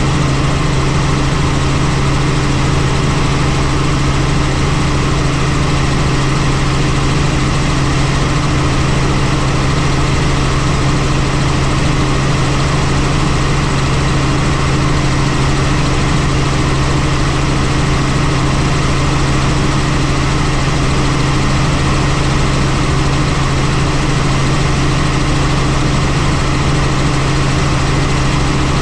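Helicopter in flight: engine and rotors giving a loud, steady drone with a strong low hum.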